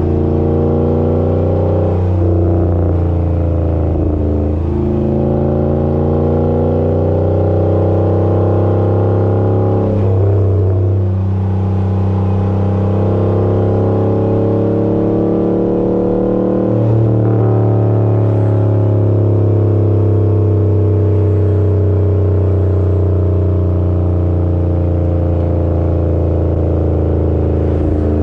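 Exhaust of a 5.7L Hemi V8 running through a Flowmaster Super 10 muffler with the first resonator deleted, pulling hard under acceleration with manual upshifts: the pitch climbs steadily, then drops at each shift, several times over.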